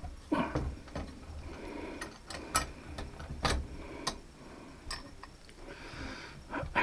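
Irregular clicks and light knocks of metal parts and tools being handled while a heating and air unit's blower motor assembly is put back together.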